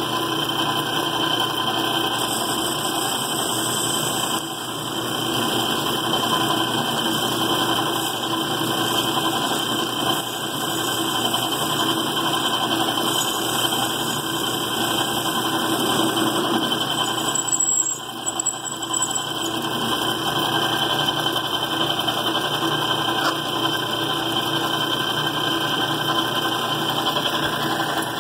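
Metal lathe running steadily, turning down a threaded rod with a light cut of about two thousandths of an inch. The hum of the lathe dips briefly about two-thirds of the way through.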